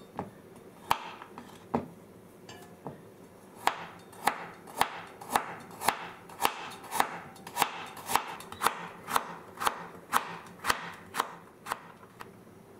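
Chef's knife slicing a small Japanese radish (daikon) into thin rounds on a wooden cutting board, each stroke ending in a crisp tap of the blade on the board. A few scattered cuts come first, then a steady run of about two slices a second.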